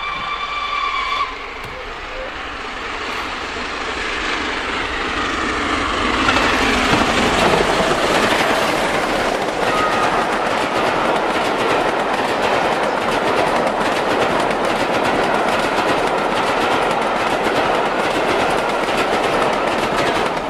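A train approaches and passes at speed, its wheels running loudly over the rails. The noise builds over the first few seconds and then holds steady. A short horn or whistle note ends about a second in.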